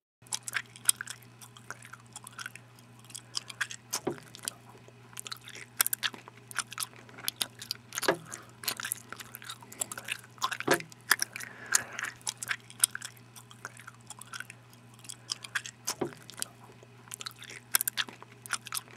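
A person chewing loudly with the mouth open, with many sharp crunching clicks in quick succession, over a steady low electrical hum.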